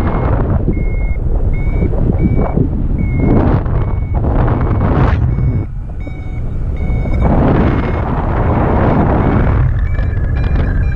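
Paragliding variometer beeping in short, high, evenly spaced tones, about one and a half beeps a second, the climb tone that signals the glider is rising. Wind buffets the microphone in loud gusts underneath.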